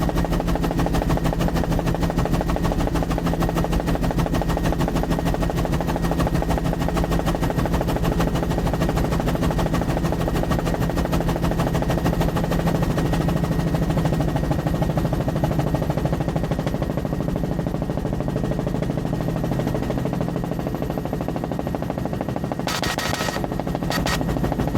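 Bell 206 LongRanger helicopter in flight: its turbine engine and main rotor make a loud, steady, fast chopping drone. A short burst of hiss cuts in briefly near the end.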